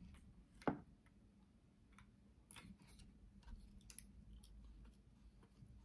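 Faint, scattered plastic clicks and taps from a selfie stick being handled and adjusted, with one sharper click a little under a second in.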